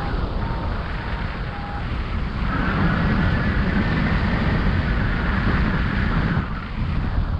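Airflow rushing over the microphone of a paraglider pilot's camera in flight during the landing approach, a steady buffeting rumble that swells a little in the middle few seconds. A few short, steady beeps sound in the first two seconds.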